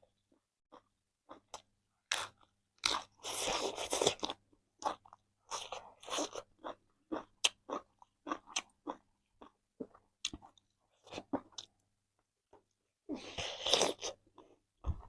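Close-up eating of chicken: irregular crunching bites and chewing, with a longer run of crunching a couple of seconds in and again near the end.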